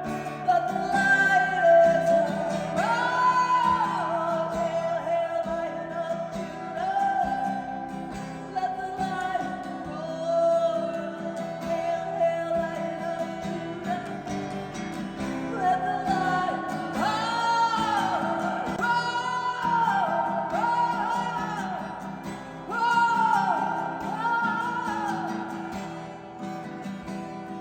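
Contemporary worship song: singing carried over guitar and band accompaniment.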